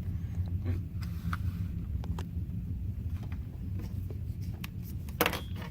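Faint scattered metallic clicks of small brass lock pins and tweezers being handled, with a louder click near the end, over a steady low hum.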